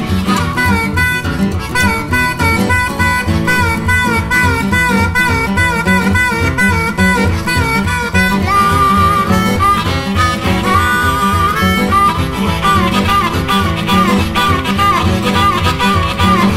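Electric blues band playing: an amplified blues harmonica solos with bent, wavering notes over guitar and a steady beat.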